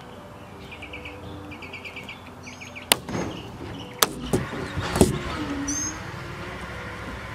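Pop rivets being set with a hand rivet gun: a few sharp snaps as the rivet mandrels break, about four of them between three and five seconds in.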